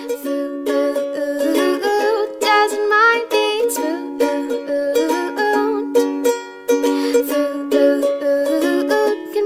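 Background music: a plucked-string melody over steady held notes.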